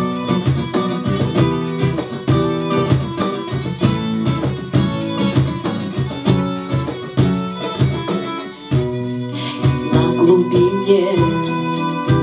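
Instrumental passage of a live acoustic band: steadily strummed acoustic guitar and a violin line over hand percussion keeping a regular beat.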